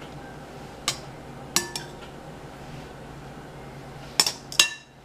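Metal kitchen tongs clinking against serving bowls while pasta is lifted, about five sharp clinks in two clusters, some ringing briefly.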